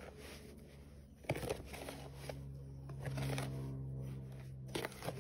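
Laundry detergent powder being worked by hand and stirred with a spoon in a plastic tub: a soft, gritty rustling and scraping. From about two seconds in a steady low hum joins it.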